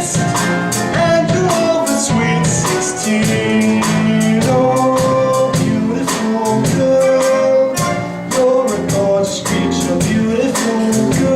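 Upbeat show-tune music with a steady beat, the accompaniment of a stage musical's song-and-dance number.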